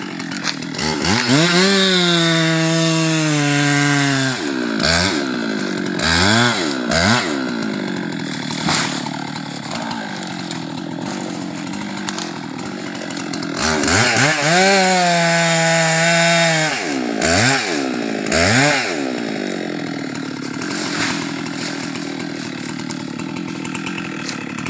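Husqvarna 390XP two-stroke chainsaw cutting teak. It revs to full throttle in two long bursts, about a second in and again near the middle, each followed by a few short throttle blips, and runs lower and steadier in between.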